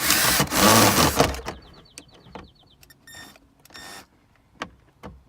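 Screwdriver work on a T20 Torx screw in plastic dashboard trim. A loud scraping, whirring stretch lasts about a second and a half, then a quick even run of light clicks follows, with scattered taps and clicks after it.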